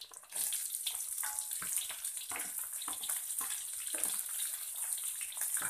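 Hot oil in a wok sizzling as chopped chilli, shallots and garlic go in with frying grasshoppers, the sizzle starting about a third of a second in and broken by irregular crackling pops. The crackle (krisik-krisik) is the sign that the grasshoppers are fried dry.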